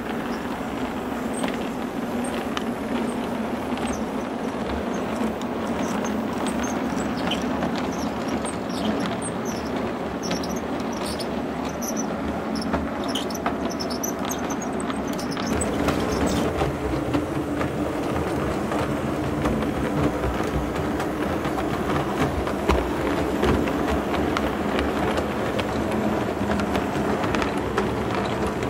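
An O scale model train running on two-rail track: a steady electric motor and gear hum with wheels clicking over the rails. High squeaks come through the first half, where it rounds the curve.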